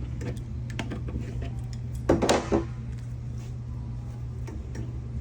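A short cluster of hard knocks and clinks about two seconds in, with a few faint clicks elsewhere: tools and parts being handled while a backflow preventer assembly is taken apart. A steady low hum runs underneath.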